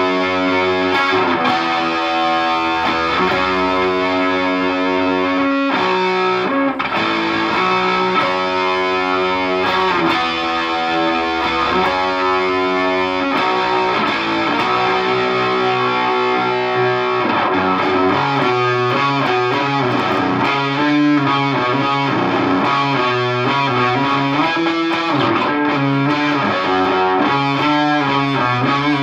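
Electric guitar played through a Visual Sound Angry Fuzz pedal into a Peavey Bandit 112 amp: distorted, held chords and notes, turning to busier, choppier playing about eighteen seconds in.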